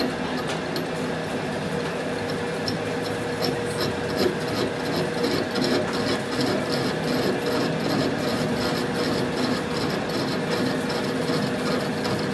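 Metal being worked at a workshop machine: a steady machine hum with a regular rasping tick of about three strokes a second throughout.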